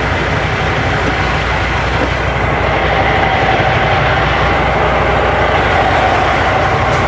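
Large truck's engine idling close by: a steady low rumble.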